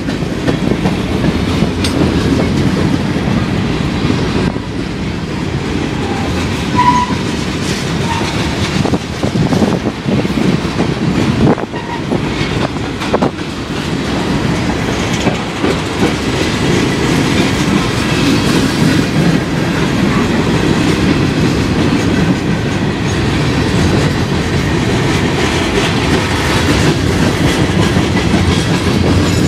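Freight train of covered hoppers, tank cars, boxcars and coal gondolas rolling past: a steady rumble of steel wheels on the rails, with a few sharp knocks partway through.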